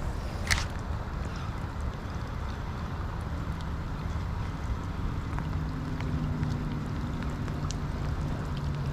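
Steady outdoor wind and rain noise, buffeting the microphone with a low rumble. A few sharp ticks come through it, and a faint low hum joins about halfway through.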